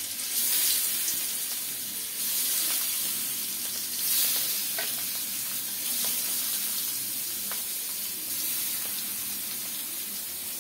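Fish pieces frying in hot oil in a pan, a steady sizzle that swells every couple of seconds, with a few light clicks.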